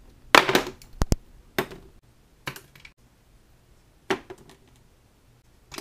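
A series of separate sharp clacks and knocks, about seven in all, with a quick double click about a second in: a plastic tackle box and lures set down and handled on a wooden desk.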